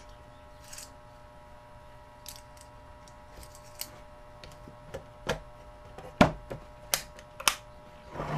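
Small clicks and knocks of a wooden tool case and metal tools being handled on a workbench, with a few sharper knocks in the last three seconds, over a faint steady hum.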